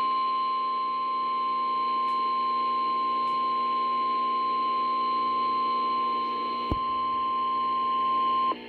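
NOAA Weather Radio warning alarm tone: one steady high tone held for about eight and a half seconds, then cut off suddenly, announcing that a severe weather warning message follows. A buzzing hum from the radio sounds underneath, with a single click about two-thirds of the way through.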